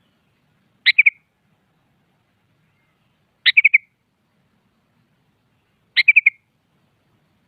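Sooty-headed bulbul (kutilang) calling three times, about two and a half seconds apart. Each call is a sharp note followed by a quick run of about three notes.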